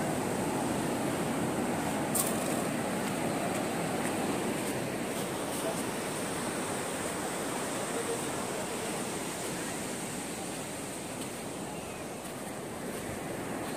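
Steady wash of sea surf breaking on a sandy beach, with a single sharp click about two seconds in.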